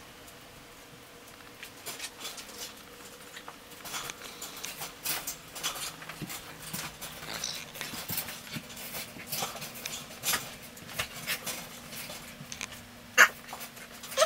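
A cat moving about on a hard floor: irregular light taps and clicks, with one sharper click near the end.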